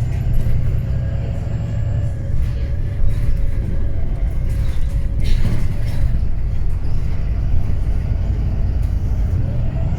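Wright Pulsar 2 bus with a Cummins ISB diesel engine running: a steady low rumble with a steady whine over it, and a short hiss about halfway through.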